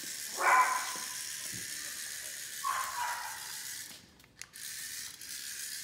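A dog barks twice, short calls that fall in pitch, about half a second in and again near three seconds, over a steady high hiss that cuts out about four seconds in.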